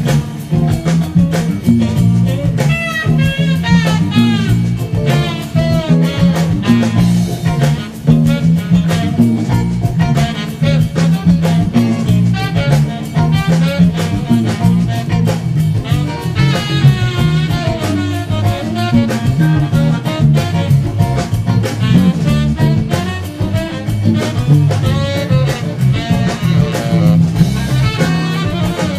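Funk-jazz band music: a busy electric bass guitar line under drum kit and saxophone melody lines.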